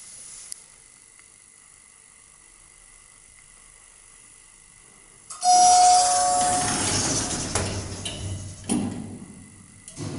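Passenger lift cab doors closing: after a quiet spell, a sudden loud start about five seconds in with a steady tone lasting about a second, then a fading mechanical rush as the doors run shut, with a knock near the end.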